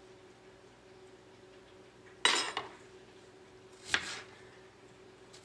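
A metal kitchen knife clattering against a plastic cutting board while cucumber is cut into rings: two sharp clinks, a louder one about two seconds in and a smaller one near four seconds, with another right at the end.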